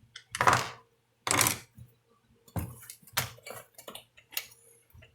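Metal hand tools or parts being handled, clinking and clattering in a string of sharp, irregular knocks.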